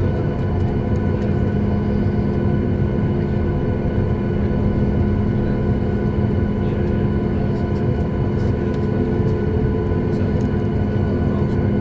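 Cabin noise of a Boeing 737 MAX 8 taxiing, its CFM LEAP-1B engines running steadily at low taxi power: a constant low rumble with several steady hum tones over it.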